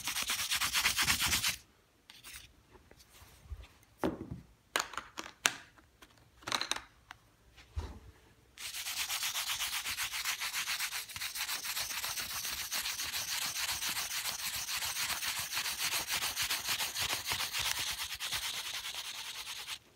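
Coloured pencil scribbling rapidly back and forth on paper laid over a soft carpet, a fast scratchy rubbing. It stops after about a second and a half, a few light taps follow, and the scribbling starts again about eight and a half seconds in and keeps on steadily.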